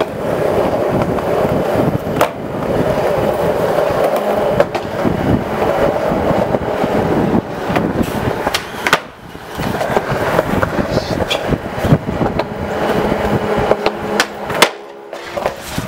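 Skateboard wheels rolling on concrete, a steady grinding rumble broken by several sharp clacks of the board popping and landing.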